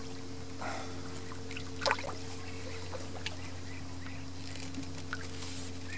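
River water trickling and lapping against the stones of the bank, with a few short splashy sounds about a second and two seconds in, over a steady low hum.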